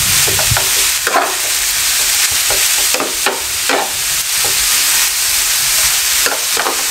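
Shredded cabbage, carrot and capsicum frying lightly in hot oil in a metal pan, a steady sizzling hiss, while a metal ladle tosses and scrapes through it with irregular clinks.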